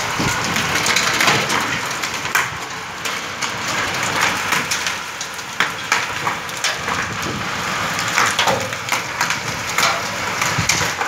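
Heavy rain pouring onto a paved courtyard: a steady hiss with frequent sharp, irregular hits from the ground and nearby surfaces.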